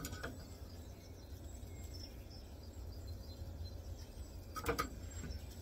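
Low, steady outdoor background rumble with brief clicks of metal tongs against a wire fish-grilling basket as grilled mackerel are handled; a double click near the end is the loudest.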